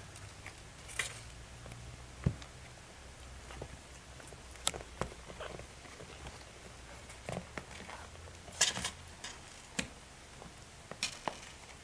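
A litter of young kittens scrambling in a blanket-lined cardboard box: irregular small scratches, taps and knocks as they crawl and climb over each other, over a low steady rumble.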